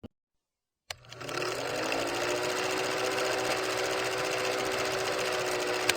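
A small motor switching on with a click about a second in. Its whine rises briefly in pitch, then it runs steadily with a rapid buzz.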